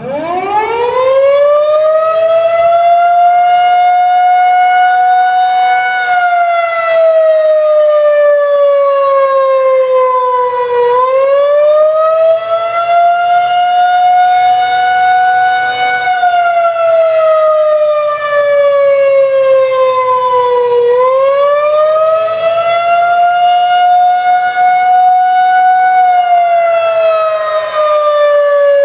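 Federal Signal 2001-130 electromechanical siren spinning up from a low pitch in the first couple of seconds, then sounding the attack signal: a slow wail rising and falling in pitch about every ten seconds.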